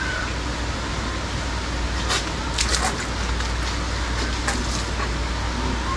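Water gun firing a continuous hissing jet of water, with a few short clicks or taps around the middle.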